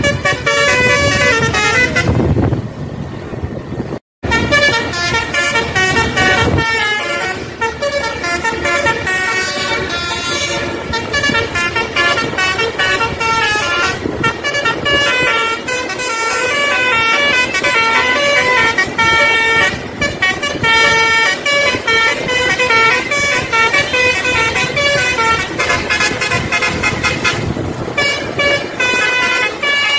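Tour bus's basuri telolet horn playing fast, stepping multi-note tunes, loud and almost continuous. About two seconds in it breaks off briefly for engine and road noise, and the sound cuts out for an instant shortly after.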